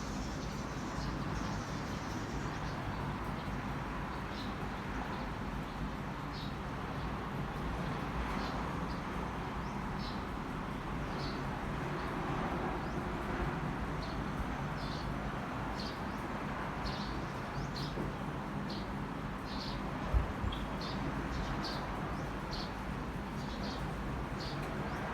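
Steady low rumble of a train's diesel engine, with short high bird chirps repeating every second or so over it and one brief knock late on.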